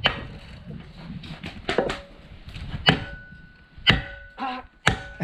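Chopping on wood: about six sharp, separate strikes, roughly a second apart.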